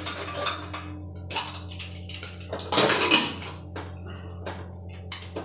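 Metal clinks and knocks of a pressure cooker lid being handled and fitted onto the cooker, with a louder clatter about three seconds in, over a steady low hum.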